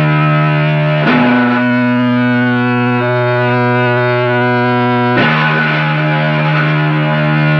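Heavily distorted electric guitar holding slow, sustained chords from a 1993 black/doom metal demo recording. The chord changes about a second in and again about five seconds in.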